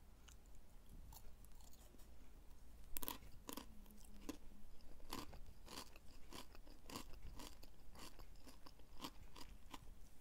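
Crispy deep-fried, cornstarch-coated pasta noodles crunching as they are chewed: a run of faint, irregular crackly crunches, the loudest about three seconds in.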